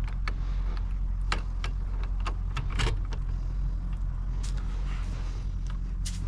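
Scattered metallic clicks and rattles of a torque wrench and socket being worked on a steering wheel nut, with a cluster of quick clicks about three seconds in, over a steady low hum.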